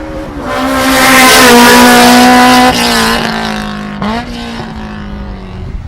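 Race car engine at high revs passing close. It is loudest from about one second to nearly three seconds in, where the note drops abruptly; a brief jump in pitch about four seconds in is followed by a slowly falling engine note.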